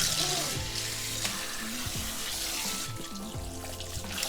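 Water running steadily from a Comllen single-handle kitchen faucet into the sink, a continuous splashing hiss, as the newly installed faucet is tested with its handle moved from cold to hot.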